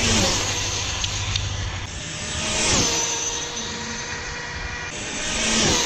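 Brushless electric Traxxas Slash 4x4 RC car speeding past in three fly-bys about three seconds apart. Each pass is a high motor whine that rises to a peak and drops in pitch as the car goes by.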